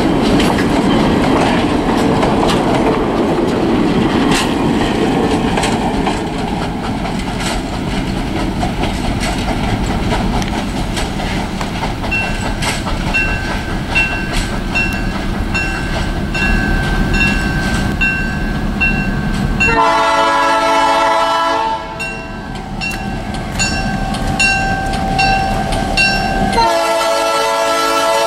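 Replica 4-4-0 steam locomotive pulling passenger cars past and away, the cars rumbling on the rails. From about the middle a bell rings at an even pace, and the locomotive's steam whistle blows two long blasts near the end.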